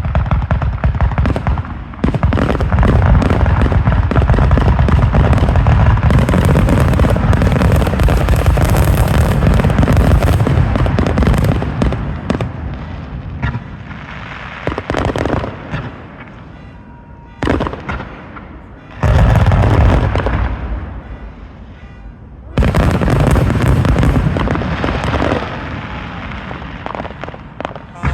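Aerial fireworks: a dense, continuous barrage of booms and crackling for about ten seconds, then several separate volleys of bursts with quieter gaps between them.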